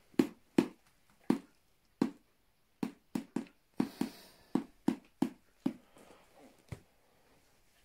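Footsteps on a hard floor: a run of about fifteen short, sharp knocks at an uneven walking pace, roughly two a second, stopping about a second before the end.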